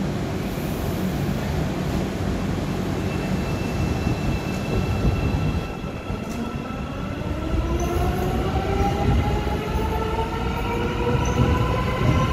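Istanbul M2 line metro train pulling away: a low rumble, then from about six seconds in a multi-pitched whine from its electric traction drive that climbs steadily in pitch as the train speeds up.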